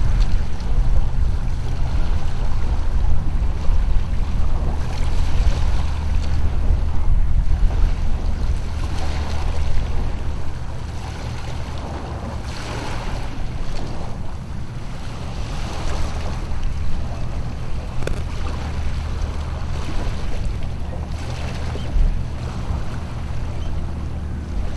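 Wind buffeting the microphone as a steady low rumble, with small waves washing onto the shore in soft surges every few seconds.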